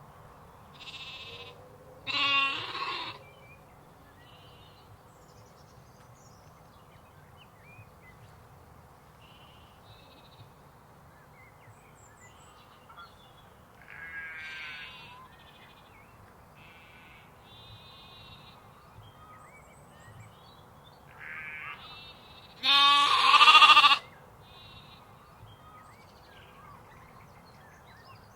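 Sheep and lambs bleating. Two loud, low bleats come about two seconds and about twenty-three seconds in, with fainter, higher bleats scattered between them over a steady low background noise.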